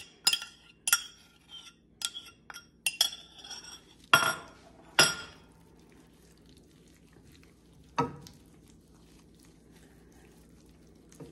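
A spoon clinking and scraping against a ceramic bowl as a thick mustard binder is scraped out, a quick run of sharp ringing clinks over the first five seconds, then one knock about eight seconds in.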